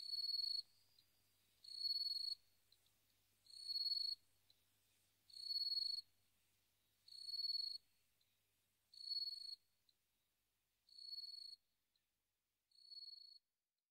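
A cricket chirping in a steady rhythm, one high trilled chirp about every two seconds, each swelling in loudness, growing fainter toward the end.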